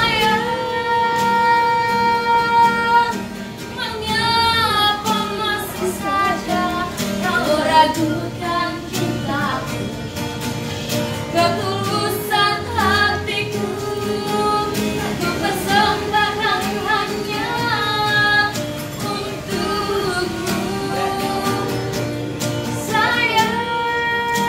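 A woman street singer singing a melody to strummed guitar accompaniment, holding long notes near the start and again at the end.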